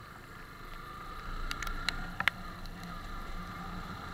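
Yamaha FZS motorcycle riding along a wet dirt road: a steady hum and road noise, with a few sharp ticks around the middle.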